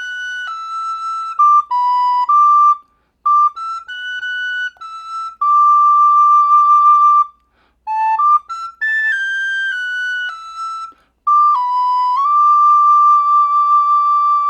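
Soprano recorder playing a song melody, one note at a time, in short phrases with brief breaks between them, ending on a long held note that cuts off sharply.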